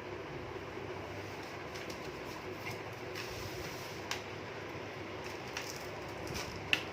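Light clicks and taps of computer parts being handled, with a sharper click near the end, over a steady background hum.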